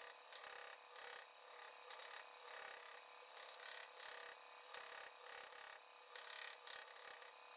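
Faint, uneven back-and-forth strokes of a hand file rubbing on a workpiece.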